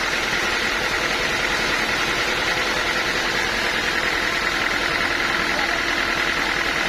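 Sawmill machinery running steadily: a constant mechanical drone with a steady high whine over it, unchanging throughout.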